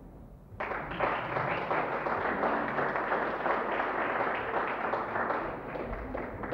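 Applause from a group of people clapping, starting about half a second in and easing off slightly toward the end.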